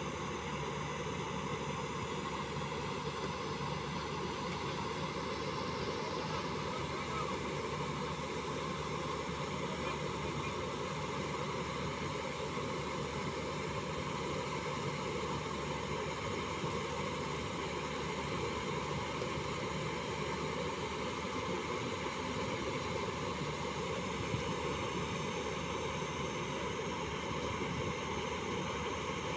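Diesel engine of a JCB 205 tracked excavator running steadily under load as the machine drives down off a low-bed trailer.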